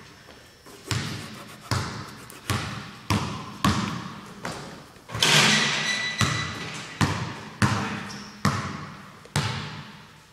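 Basketball bouncing repeatedly on a hard gym floor, each bounce echoing in the large hall, about one bounce a second or a little faster. About halfway there is a louder, longer crash with a ringing tone.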